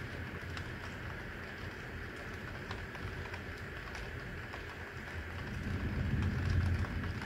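Heavy rain falling over a city: a steady hiss with faint scattered drip ticks. A low rumble swells about two-thirds of the way through and then eases.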